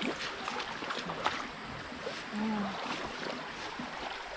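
Spring-fed stream running over a shallow rock bed: a steady rush of water, with a couple of short clicks.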